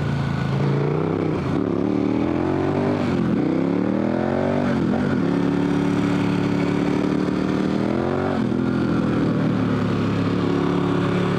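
KTM 1190 Adventure R's V-twin engine accelerating hard through corners. It rises in pitch twice in the first five seconds with short drops between, holds a steady note, then drops back and steadies again near the end.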